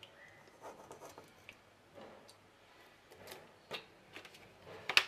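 Faint taps and clicks of a plastic oil bottle being handled as olive oil is poured into a frying pan, with one sharp click just before the end.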